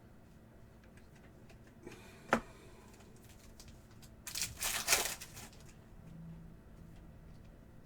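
Trading-card packs and cards being handled: a single sharp tap about two seconds in, then a brief crinkling rustle of wrapper and cards near the middle.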